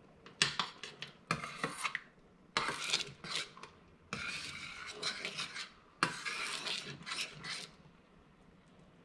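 Metal spoon stirring hoisin dipping sauce in a stainless steel pan, scraping across the pan's bottom in several bouts of a second or so each, with short pauses between them.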